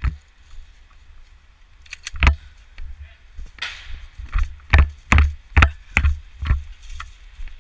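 Running footsteps crunching through dry leaf litter, heard as heavy thuds on a body-worn camera; one strong step about two seconds in, then a quick, even run of steps at about two or three a second.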